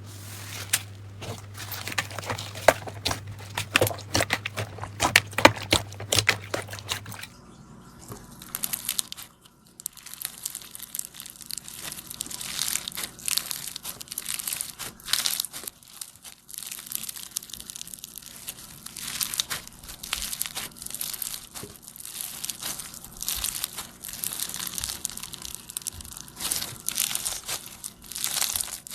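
Slime being squeezed and pressed by hand, with dense crackling and popping clicks. A low steady hum under it stops about seven seconds in.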